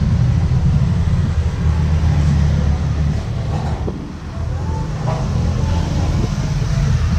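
A steady, loud low drone of a running motor or engine, dipping slightly about four seconds in, with a few light clicks.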